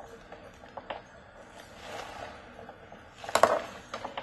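Light metallic clinks and scrapes of aluminium chips on a homemade CNC chip conveyor, with a brief clatter about three and a half seconds in.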